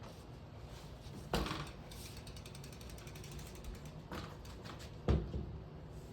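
Rapid, even ratchet clicking from a bike part or tool, running for several seconds, with a few sharp knocks. The loudest knock comes about five seconds in.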